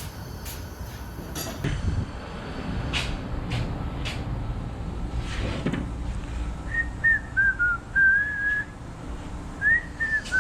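A person whistling a short tune of wavering notes, starting about two-thirds of the way in. Before it there are a few light metallic clinks and knocks from hand tools and engine parts.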